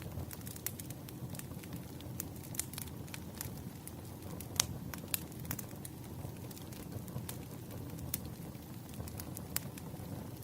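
Wood fire crackling: irregular sharp pops and snaps over a low, steady rumble, with one louder pop about halfway through.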